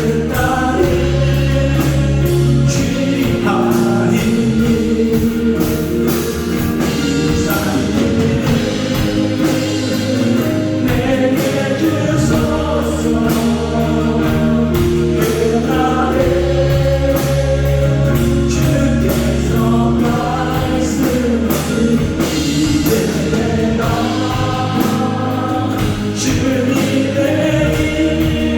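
Praise team and congregation singing a Korean worship song with full band accompaniment, at a steady loud level without a break.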